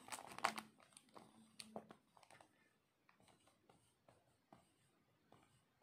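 Pen scratching as someone writes by hand. A series of short strokes and light taps, loudest in the first two seconds and then faint.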